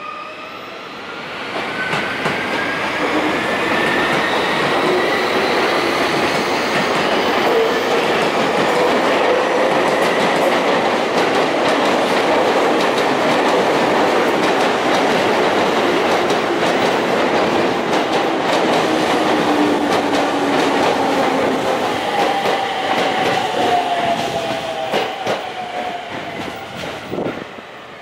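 Sotetsu 10000 series electric train arriving and braking to a stop, its Mitsubishi three-level IGBT VVVF inverter whining in tones that shift in pitch, with wheels clattering over rail joints. The sound grows over the first couple of seconds, and near the end the tones fall as the train slows and the noise dies away at the stop.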